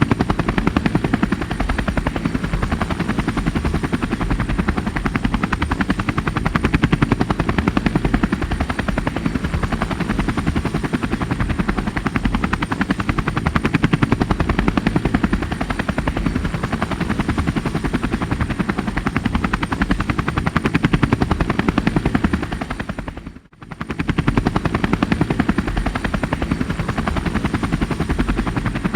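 Helicopter in steady flight, its rotor chopping rapidly and evenly over a low engine rumble. About three-quarters of the way through, the sound dips sharply almost to nothing for a moment and then comes straight back.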